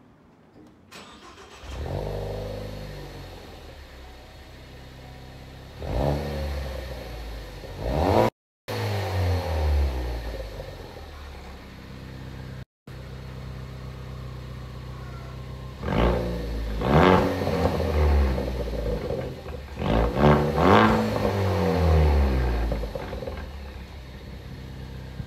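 Ford Focus ST's 2.0-litre EcoBoost turbo four-cylinder starting about two seconds in, heard from the exhaust tips with the electric exhaust cutout closed. It settles to idle, then runs through a series of short revs that rise and fall, the loudest in the second half, through an exhaust with its resonator replaced by straight pipe.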